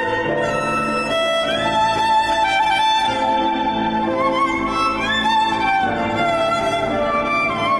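Instrumental music: a held melody that slides between notes over steady low sustained tones.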